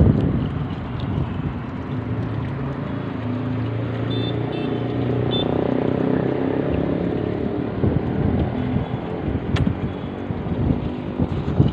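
Water pump running steadily, a machine hum with a rough, fluttering noise over it.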